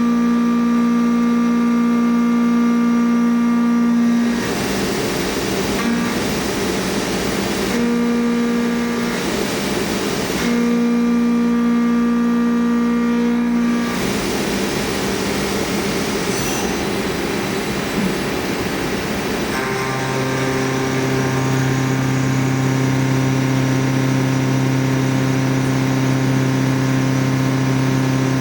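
CNC milling machine cutting Elmax steel: the spindle runs with a steady whine while the end mill takes deep profiling passes. Rougher, noisier stretches of cutting alternate with the cleaner tone. About two-thirds of the way through, the sound changes to a different steady hum with a lower note.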